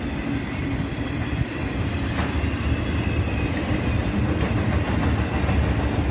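Intermodal freight train cars loaded with containers and trailers rolling past: a steady rumble of wheels on rail, with one sharp click about two seconds in.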